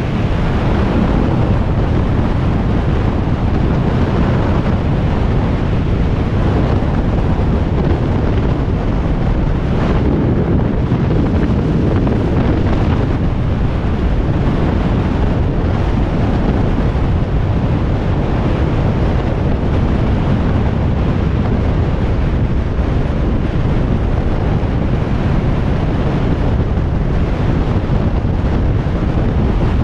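Steady roar of wind on the microphone of a motorcycle-mounted camera at motorway cruising speed, covering the engine and tyres.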